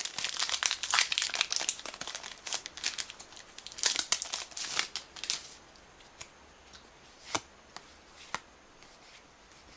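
Wrapper of a Yu-Gi-Oh! booster pack crinkling and tearing as the pack is opened, dense for about five seconds, then a few single light ticks near the end.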